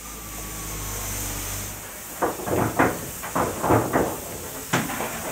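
Steam locomotive standing under steam. A steady low hum runs for about the first two seconds, then steam hisses in a run of short, irregular spurts, with a sharp click near the end.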